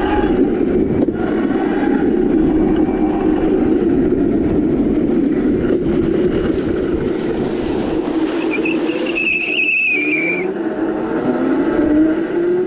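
Crazy Cart drift cart with a brushless electric motor driving on pavement, giving a steady rough hum. About eight and a half seconds in, a high tyre squeal lasts about two seconds as the cart slides, and near the end the motor's whine rises in pitch as it speeds up.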